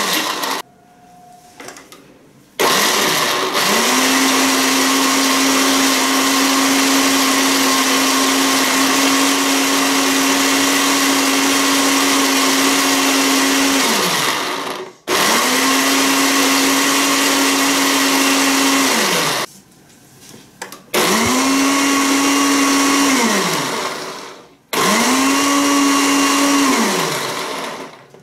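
Electric blender motor pulsed in bursts, blending dates with milk and cream: a brief run that stops under a second in, one long run of about twelve seconds, then three shorter pulses of three to four seconds. Each run spins up to a steady hum and winds down with a falling pitch when switched off.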